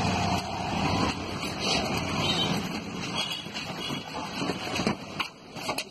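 Steady road traffic noise, with a couple of sharp clicks near the end.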